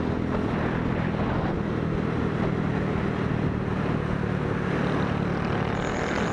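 Suzuki Smash 115 underbone motorcycle being ridden at steady speed: its small single-cylinder engine running under a steady rush of wind over the camera microphone.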